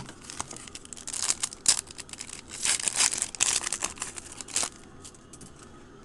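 Foil wrapper of a 2010 Donruss Elite Extra Edition baseball card pack being torn open and crinkled by hand. The crinkling is loudest from about one to nearly five seconds in, then drops to faint rustles as the cards come out.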